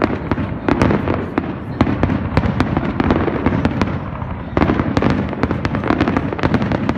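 Aerial fireworks display: a rapid barrage of shell bursts, with many sharp bangs and crackles over a continuous rumble. The bangs ease briefly about four seconds in, then pick up again.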